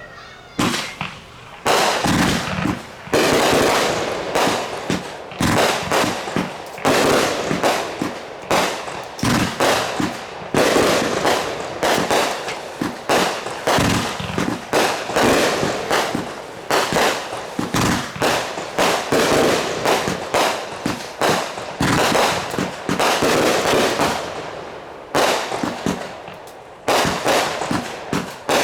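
Fireworks going off in a rapid, continuous barrage of bangs and crackles, several a second, easing briefly about 25 seconds in before picking up again.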